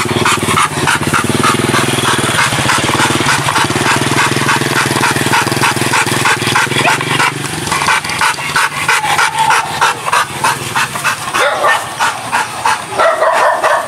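A large hunting dog panting hard and fast in quick, even strokes. A low steady hum runs under it and stops about halfway through, and near the end there is a louder pitched sound.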